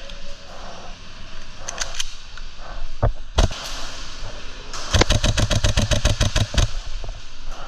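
HPA airsoft rifle (Novritsch SSQ4) shooting: two single shots, then a rapid even string of about seventeen shots in under two seconds, with a few fainter clicks before them.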